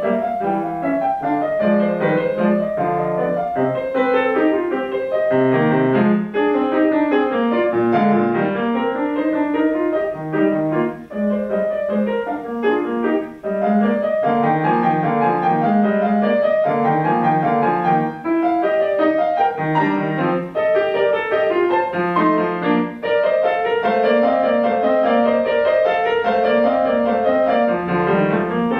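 Grand piano played solo: classical music in an unbroken stream of quick notes over repeated low-register figures.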